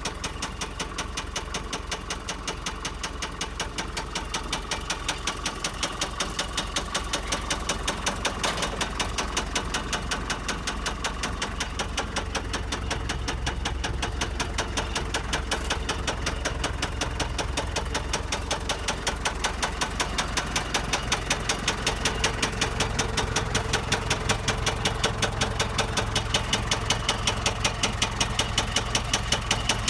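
Allis-Chalmers lift truck's four-cylinder turbo diesel engine running steadily, a rapid even beat of firing pulses that grows slightly louder in the second half.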